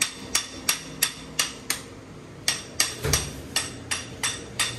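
Hammer striking metal again and again, about three ringing blows a second, with a short pause around two seconds in: driving the front axle out of a 2003 Honda CR250's front hub.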